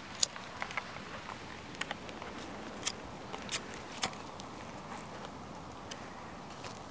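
Scattered sharp clicks and snaps of dry wooden kindling as sticks are laid on a small, just-lit campfire of paper and split wood, a few of them louder than the rest.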